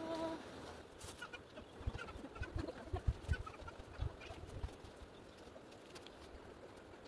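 Faint ambience with a few short bird calls and a cluster of irregular low thumps from about two to four seconds in.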